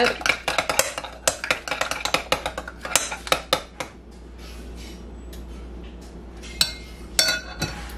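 Metal spoon stirring a creamy dressing in a glass mixing bowl, clinking rapidly against the glass for about four seconds, then a few separate clinks near the end.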